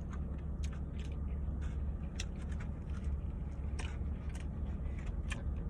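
Close-miked eating of a steak-and-cheese sandwich: scattered wet mouth clicks and chewing crackles over a steady low hum.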